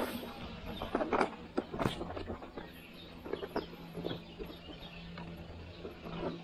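Mountain bike rolling over a bumpy dirt trail: irregular clattering knocks and rattles from the bike as it jolts over the ground, over a low steady hum.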